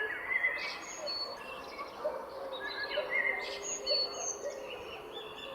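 Several birds singing at once: overlapping short chirps, whistles and trills at different pitches, over a soft steady background hiss.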